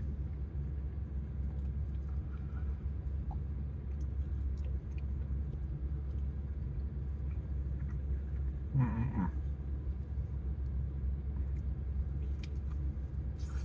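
A steady low hum. About nine seconds in there is a short pitched sound that rises and falls, like a brief vocal sound.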